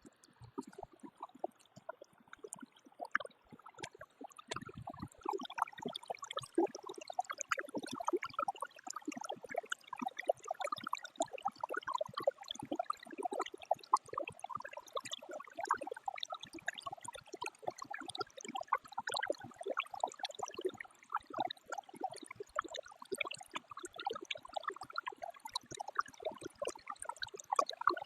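Creek water flowing and babbling, a dense continuous splashing and gurgling, a little fainter for the first few seconds.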